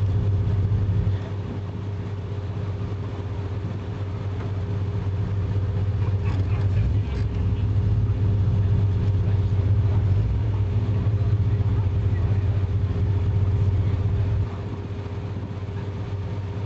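Car engine idling, heard from inside the cabin, a steady low note that gets louder for several seconds in the middle and drops back near the end. A few light clicks come about six seconds in.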